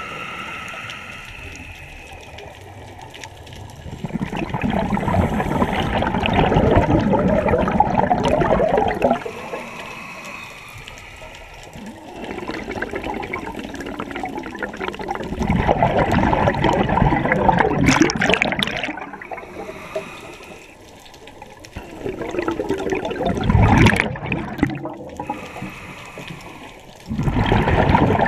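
Scuba diver's regulator breathing underwater. It breathes out four times as a loud rush and gurgle of bubbles, each lasting a few seconds and coming about every six seconds. Between them is a quieter hiss with a faint whistling tone as the diver breathes in.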